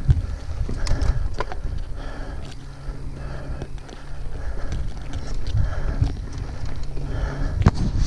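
Yeti SB6 full-suspension mountain bike rolling fast down a dirt singletrack: tyres crunching over dirt and dry leaves, the bike rattling, and wind rumbling on the microphone. Sharp knocks from the bike hitting bumps come through, the loudest near the end.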